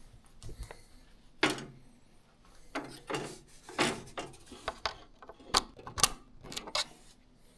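Plastic knocks and the rattle of a coiled cable as a projector touch panel is handled, then several sharp clicks in the second half as a round cable connector is pushed into the panel's socket.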